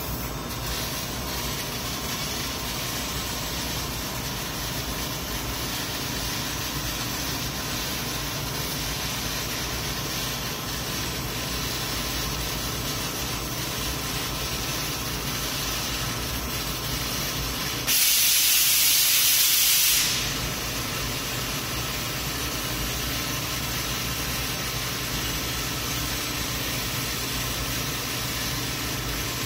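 Laser tube-cutting machine cutting a steel H-beam: a steady hiss from the cut and the machine. Past the middle comes a louder, higher hiss lasting about two seconds, then the steady hiss resumes.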